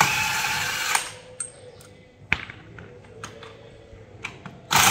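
Cordless impact wrench running in short bursts of about a second, once at the start and again near the end, with a single sharp click between them, as it undoes the bolts of a tractor's front axle hub.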